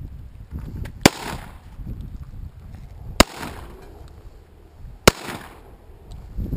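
Three shots from a Rock Island Armory GI M1911A1 .45 ACP pistol, fired singly about two seconds apart, each followed by a short echo.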